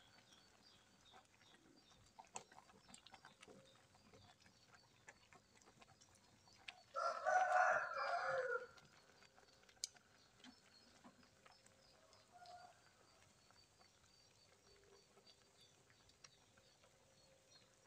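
A rooster crows once, about seven seconds in, for under two seconds. Under it, faint ticking and bubbling come from a pot of papaya leaves at the boil.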